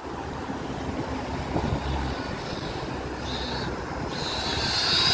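Kyosho Inferno NEO 3.0 VE electric RC buggy running flat out with its Surpass Hobby 4076 2000kV brushless motor whining as it approaches, the whine growing louder near the end. Wind on the microphone before the car comes close.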